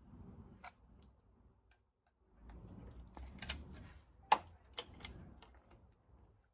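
Irregular clicks and knocks of hand tools on engine parts during a teardown, over a faint low hum, with one sharp click, the loudest, about four seconds in.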